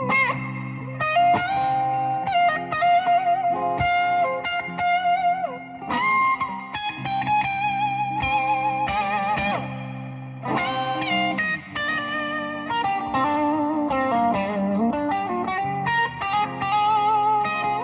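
Gibson ES-335 semi-hollow electric guitar playing a lead of single notes with wide vibrato and string bends, over steady held lower notes.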